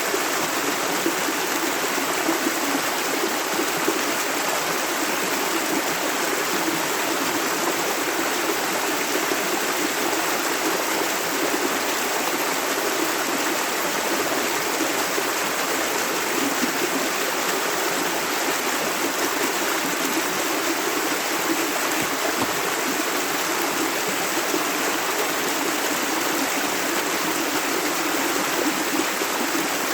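Shallow, clear river water running and rippling steadily, an even rushing with no breaks.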